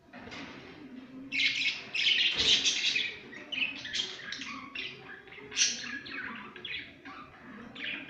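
Pet budgerigars chirping and chattering in a quick run of short, high calls, loudest from about a second and a half to three seconds in.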